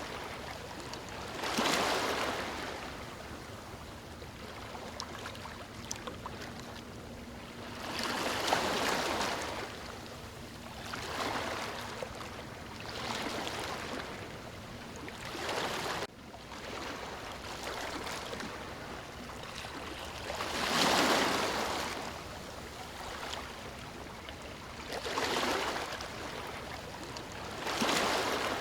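Ocean surf: waves breaking and washing up the shore, a swell of hiss every few seconds over a steady wash, with a sudden short dip in level about halfway through.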